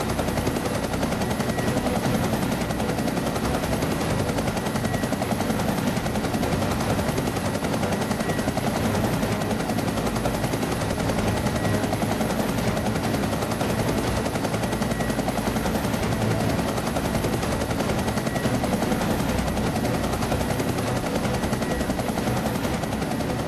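Cartoon helicopter sound effect: a fast, steady rotor chop over an engine drone.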